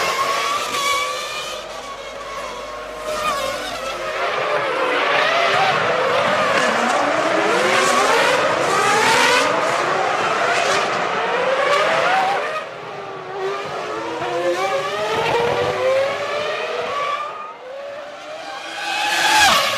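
Formula One V10 engines at racing revs, several cars at once, their pitch climbing through the gears and dropping again under braking over and over; one car passes loudly close by near the end.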